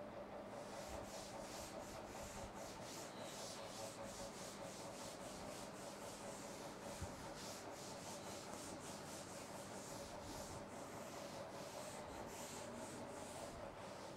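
A cloth being rubbed back and forth over a chalkboard, erasing chalk writing: faint, repeated swishing wipe strokes.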